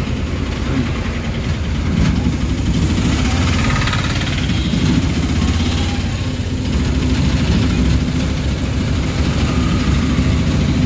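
Auto-rickshaw engine running steadily as the auto drives along, heard from inside the passenger compartment, with street traffic around it.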